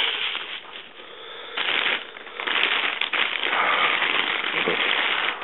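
Packaging being opened by hand: a dense crackling rustle that eases off briefly about half a second in, then comes back loud and continuous from about a second and a half.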